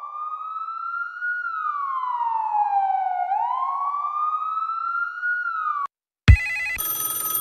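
A siren sound effect: one wailing tone that rises, slides down and rises again, then cuts off abruptly. About half a second later, music bursts in with a loud hit and bright held tones.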